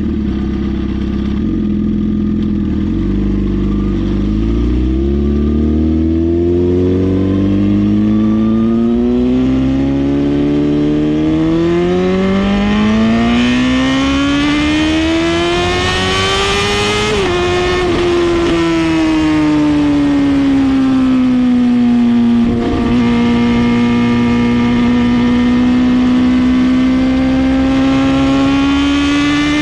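Suzuki GSX-R750 inline-four engine through a full Brock's exhaust, loud and under load: its pitch climbs slowly and steadily for over ten seconds, drops abruptly a little past the middle, sags and falters briefly, then holds steady and starts climbing again near the end.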